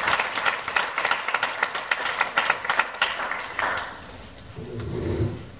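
Audience applause, many hands clapping, dying away about four seconds in, then a brief low muffled sound.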